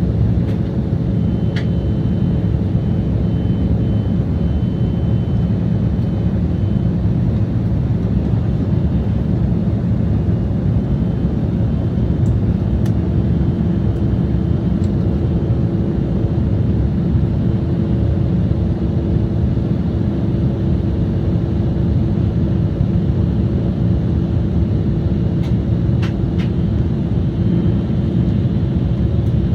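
Steady cabin drone of an Embraer 175 airliner, a dense even rumble of its jet engines and airflow heard from inside the cabin, with a few faint clicks.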